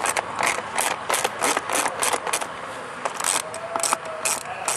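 Ratchet wrench with a socket on an extension backing out a bolt, clicking about four times a second.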